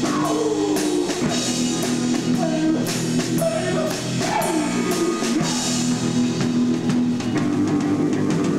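A live rock band playing: a drum kit struck steadily with frequent cymbal hits, over held electric guitar notes with some bends.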